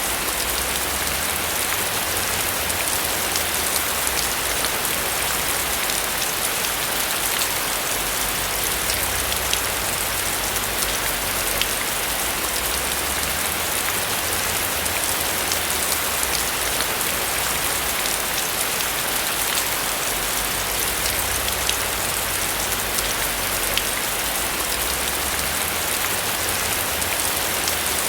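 Steady heavy rain falling on a roof: a dense, even hiss dotted with the small ticks of individual drops, with a low rumble underneath that comes and goes.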